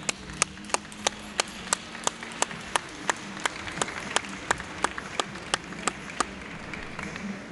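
Steady rhythmic hand clapping, about three claps a second, stopping about six seconds in, over a low crowd hubbub.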